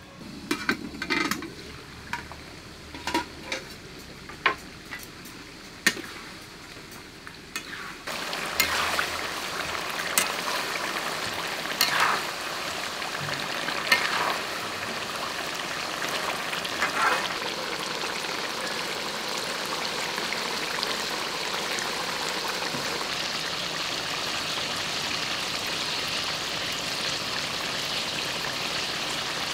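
Chicken wing pieces sizzling and bubbling in oil and juices in a wok, a steady frying hiss that starts abruptly about eight seconds in, with a few stirring strokes of a spatula soon after. Before it, faint scattered drips and clicks.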